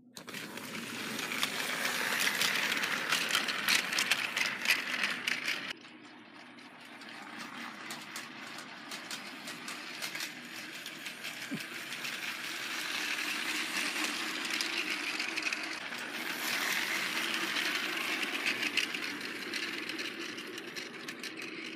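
Battery-powered Trackmaster toy train running on plastic track: a steady motor whir with the wheels and coaches clicking and rattling along. It drops suddenly about six seconds in, then swells again as the train comes close.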